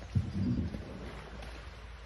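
A single paddle stroke from a small boat: a dull knock just after the start, then a short swirl of water as the blade pulls through. Wind on the microphone underneath.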